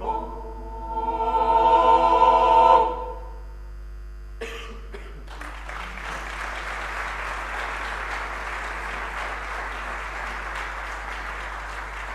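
A mixed chamber choir singing a cappella swells into a loud final chord that cuts off about three seconds in. After a short pause the audience breaks into steady applause.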